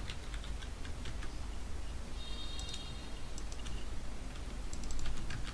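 Computer keyboard key clicks from typing code, scattered irregular taps with a quick run of them near the end.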